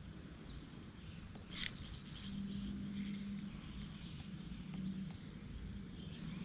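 Faint outdoor background ambience: a low rumble with a thin, steady high-pitched whine, like insects. There is a single sharp click about a second and a half in and a faint low hum in the middle.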